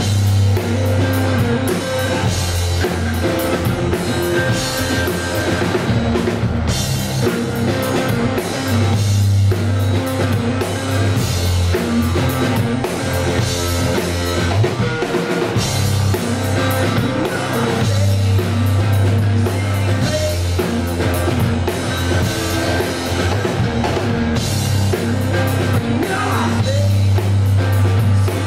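Live rock music from a guitar-and-drums duo: electric guitar over a drum kit, played loud and without a break.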